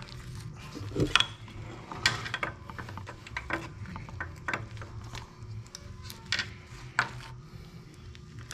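Irregular clicks, knocks and light clatter of tools and small metal and plastic parts as a seat belt retractor unit is taken apart by hand. The sharpest knocks come about a second in and again near the seventh second.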